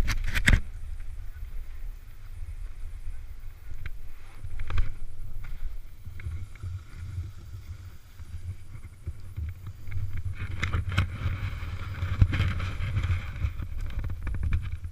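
Snowboard sliding over snow, with a steady low wind rumble on the camera's microphone. Two sharp knocks right at the start, and a louder scraping hiss of the board on snow from about ten seconds in.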